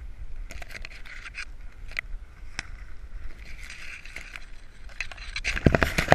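Palm fronds and dry leaf litter brushing and scraping against a GoPro harnessed to a dog's back as the dog pushes through undergrowth: scattered crackles and clicks, then a loud burst of rustling near the end, over a low rumble of the camera being jostled.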